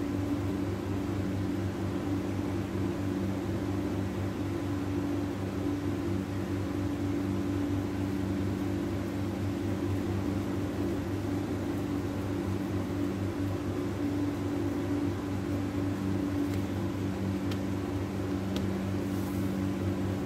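Steady low mechanical hum that holds at one level throughout, with a few faint ticks near the end.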